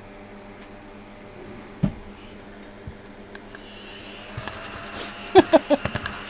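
Mini desk vacuum whirring, switched on about four seconds in with a steady high whine; its suction is too weak to lift the scratch-off shavings. A run of short, loud knocks comes near the end.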